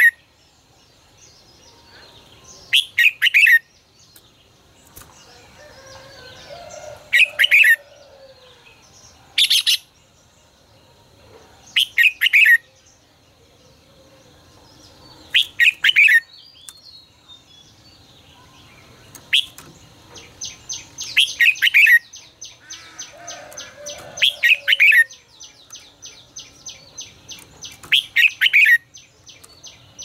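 Red-whiskered bulbul singing: short loud phrases repeated every two to four seconds. From about two-thirds of the way in, a fast run of high ticking chirps runs under them.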